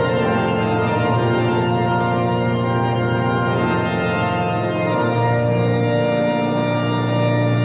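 Church organ playing slow, sustained chords, each held for a few seconds before moving to the next.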